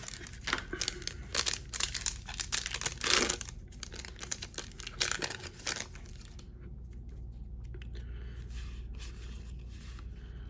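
Foil trading-card booster pack wrapper being torn open, with a rapid run of ripping and crinkling for about six seconds. Softer rustling of the wrapper and cards follows.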